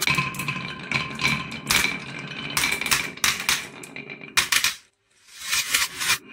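Marbles rolling and clacking along a wooden wave-track marble run, knocking against the wood and each other in rattling bunches, with a short break about five seconds in.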